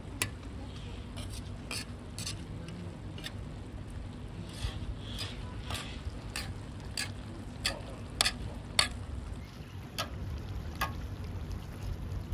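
Metal skimmer scraping and knocking against a cast-iron kazan while spreading rice for plov: irregular sharp clicks, about one or two a second, over a soft steady sizzle from the pot.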